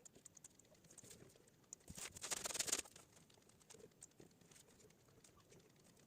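Scattered faint clicks, as of a computer mouse used to answer an online test, with a short scratchy rustle about two seconds in that lasts under a second.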